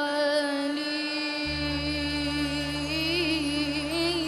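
A child singing in Arabic, holding one long note that begins to waver with vibrato near the end, over instrumental backing; a steady low bass tone comes in about one and a half seconds in.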